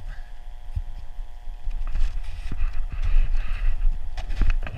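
Wind buffeting the helmet camera's microphone as a steady rumble, with knocks and scrapes of skis and ski poles shifting on steep snow. The scraping is loudest from about two to four seconds in, and there is a cluster of knocks near the end.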